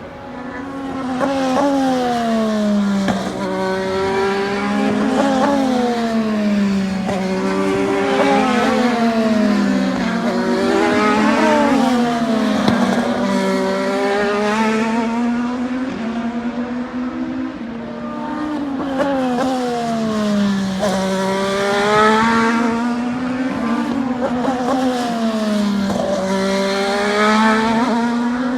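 Race car engine running hard, its pitch sliding down and climbing back up again and again as it works through the gears, about a dozen times over the stretch.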